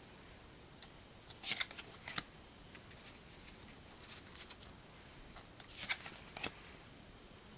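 Tarot cards being flipped through by hand, one card at a time: short papery swishes and flicks as each card slides off the deck, in small clusters a few seconds apart.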